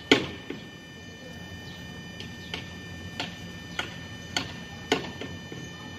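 Regular light ticking from the car, about three ticks every two seconds, over a faint steady high-pitched whine. The loudest tick comes right at the start.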